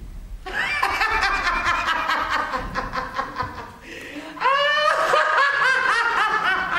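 A woman laughing heartily in a long run of quick, high-pitched ha-ha pulses, the laugh rising in pitch and getting louder about four and a half seconds in. It is an actress's staged laugh.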